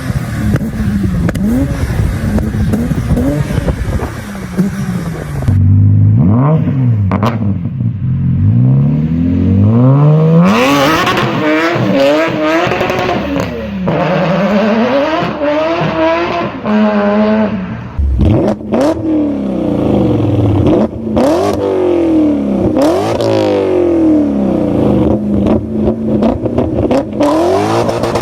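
BMW M5 engines revving and accelerating, the exhaust note repeatedly climbing and dropping in pitch. The sound changes abruptly about five seconds in and again around eighteen seconds.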